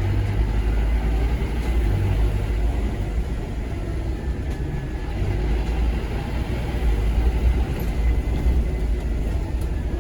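Scania K230UB single-deck bus's five-cylinder diesel engine running with the bus under way, a steady low rumble heard from on board.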